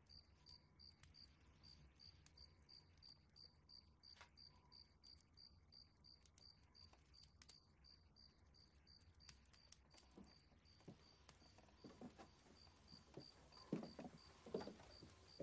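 Faint, steady chirping of crickets, about three chirps a second, over near silence. In the last few seconds soft irregular thuds come in and grow louder.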